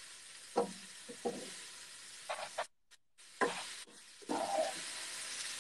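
Vermicelli pasta and pieces of steak sizzling as they fry in a pan while being stirred, a steady hiss. The sound drops out briefly a little after halfway.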